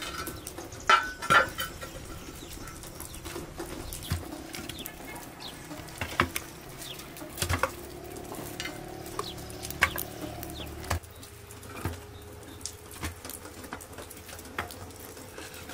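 Metal tandoor lid clanking twice with a short ring as it is lifted off the clay pot. Dry sticks are then dropped in, knocking against the clay walls and each other in scattered clicks as kindling is laid for the fire.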